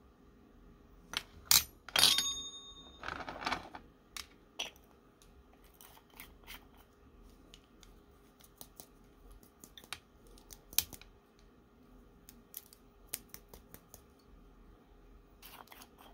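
Small jars, lids and a metal spoon being handled on a table: sharp clinks and taps, the loudest about two seconds in with a brief metallic ring, then scattered light clicks and taps.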